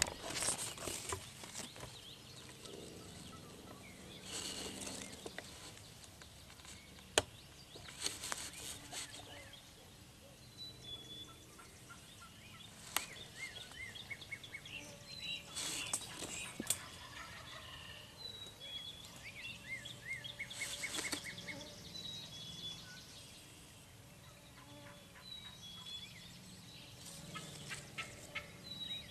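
Wild turkey gobbling several times, with small birds chirping and brush rustling in between.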